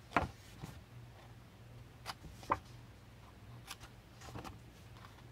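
Small scissors snipping cardstock as the corners are notched out: a few short, separate snips, the loudest near the start and about two and a half seconds in.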